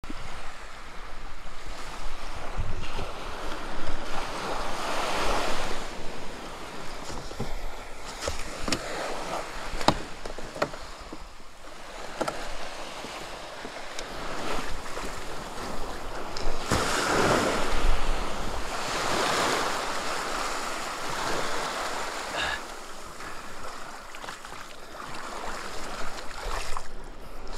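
Small waves washing in over shallow water at a beach, surging and fading every few seconds, with a few sharp clicks and knocks as gear on a kayak is handled.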